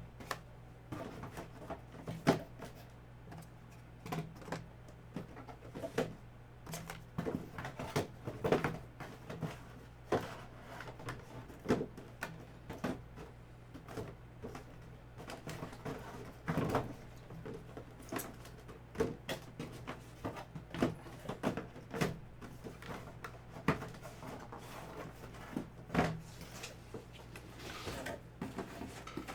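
Collectible items and their packaging being handled on a table: irregular knocks, clicks and rustles, over a steady low hum.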